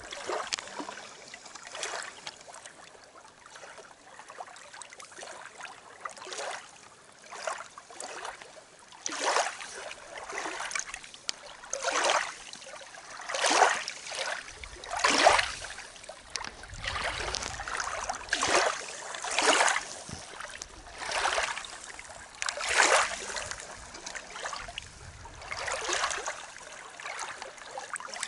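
Small waves lapping and washing over the gravel of a lake shore, one swash every one to two seconds.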